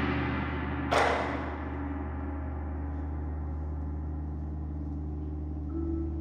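A gong struck once about a second in, ringing and slowly fading over the lingering decay of a loud ensemble hit. Near the end, mallet-percussion notes begin climbing upward in steps.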